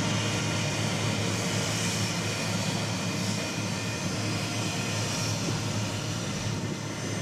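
Boeing 767-300ER's twin jet engines running at low taxi power as the airliner taxies past: a steady rumble and hiss with a constant low hum, easing slightly near the end.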